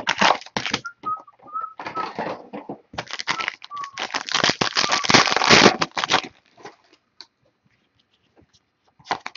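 Clear plastic wrapper on a trading card box crinkling and tearing as it is ripped open, in several rustling bursts with a few short thin squeaks, stopping about six seconds in.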